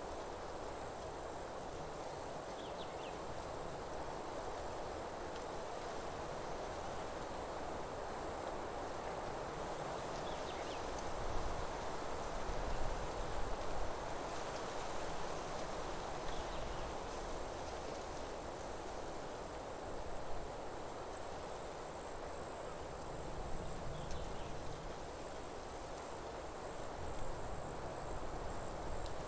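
Forest ambience: an insect chorus holds one steady, high-pitched trill without a break, over a constant soft rushing hiss, with a few faint short chirps now and then.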